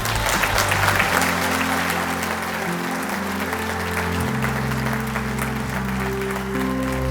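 Audience applauding over background music with slow held notes and a changing bass line; the clapping swells about a second in and then gradually thins out.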